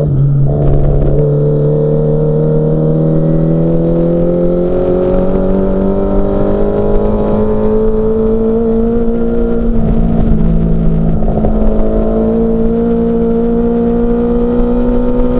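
Classic Mini Cooper S race car's A-series four-cylinder engine at full throttle. Its pitch climbs slowly and steadily as it pulls hard, with a couple of brief wavers about two-thirds of the way through.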